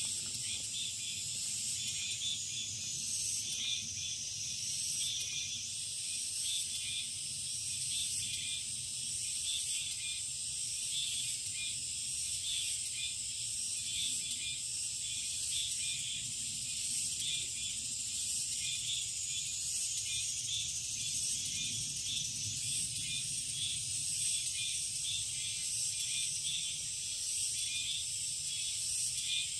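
Summer chorus of many insects in a forest: a dense, steady high-pitched buzzing with a quick pulsing trill running through it.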